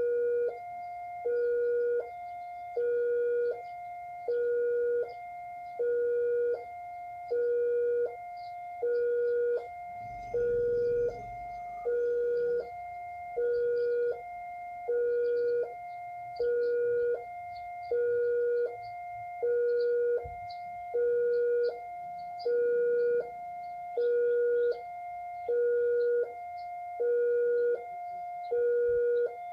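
Railway level crossing warning alarm sounding continuously: an electronic two-tone signal alternating evenly between a lower and a higher tone, each held for about three quarters of a second.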